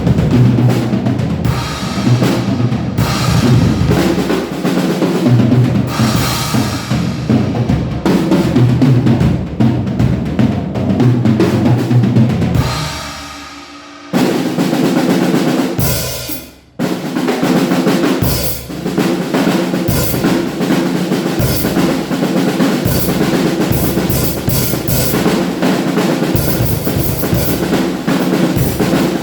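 Drum kit with Zeus cymbals played in a steady groove, bass drum, snare and cymbals together, picked up by a single phone microphone. About halfway through, the sound fades and drops out twice briefly before the full kit comes back.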